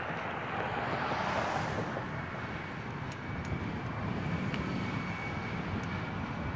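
Road traffic: a car passing at speed, its tyre and wind noise swelling and fading over the first two seconds, then a steady background rush of traffic.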